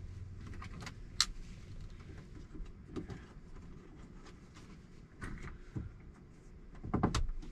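Handling noises as a phone mount is fitted to a truck's dashboard: small plastic clicks and rustling. There is a sharp click a little over a second in and a cluster of low knocks near the end.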